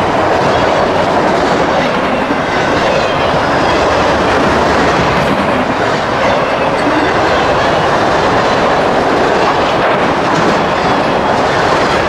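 Freight train of autorack cars rolling past close by: a loud, steady noise of steel wheels running on the rails.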